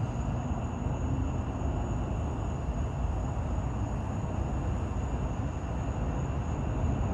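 A steady low rumble with a faint, steady high whine above it.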